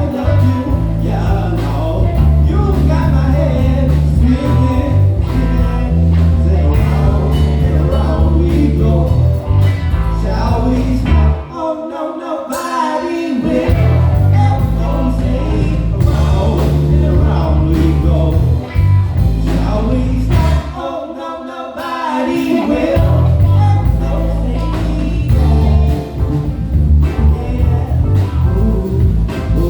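Live band playing: a heavy bass line and drums under a lead melody, with keys. The bass drops out twice for a couple of seconds, about a third of the way in and again about two-thirds in.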